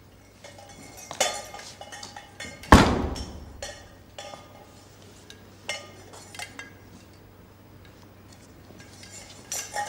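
Metal cookware hanging from a backpack clinking and knocking as the wearer walks, with one loud bang that rings on, about three seconds in.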